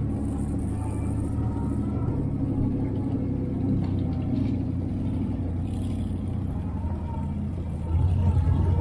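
Side-by-side UTV's V-twin engine running steadily as it climbs a rocky trail, getting louder about eight seconds in.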